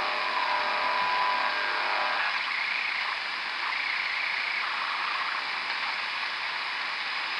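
Shortwave radio receiver audio in lower sideband around 10312 kHz: an unidentified signal of several steady tones over static hiss, which stops about two seconds in and leaves only the band's hiss.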